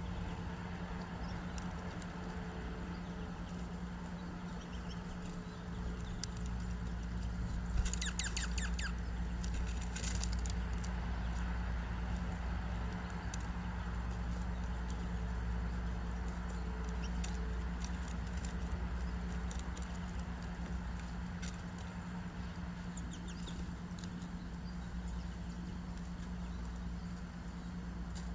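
A few quick, high chirps from small birds, a short cluster about eight seconds in and fainter ones later, over a steady low rumble and hum.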